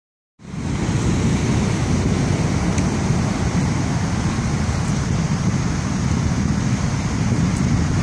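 Heavy surf, about 12 feet, breaking in a steady deep rumble, with wind buffeting the microphone.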